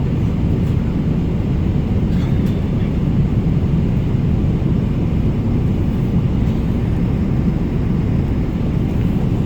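Steady low rumble of a vehicle under way, an even noise with no changes.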